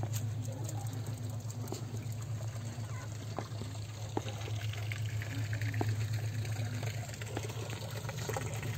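Water pouring and trickling into a concrete plunge pool: a steady splashing flow over a continuous low rumble.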